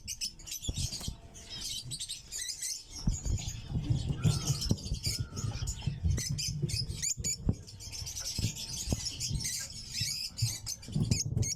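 Lovebirds chattering in dense, rapid, high-pitched squeaky chirps, with a low hum underneath from about three seconds in.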